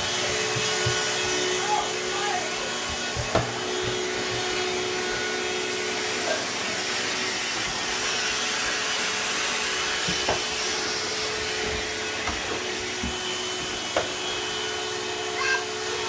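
Handheld cordless vacuum running steadily, a constant motor hum with a steady whine, with a few short knocks as it bumps about.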